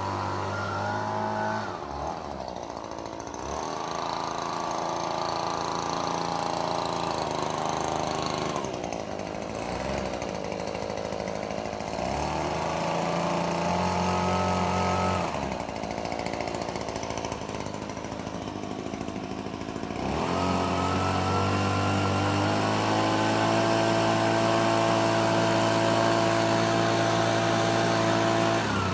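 Echo PB-2520 handheld leaf blower's two-stroke engine running, with the throttle opened and released several times. It drops back toward idle for a few seconds about two, nine and fifteen seconds in, then rises to a louder, higher speed each time. The last eight seconds are held at high speed until it drops off right at the end.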